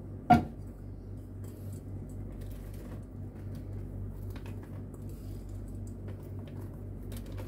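A single sharp knock about half a second in, then faint scattered ticks and rustles of sliced almonds being sprinkled by hand onto crackers, over a steady low hum.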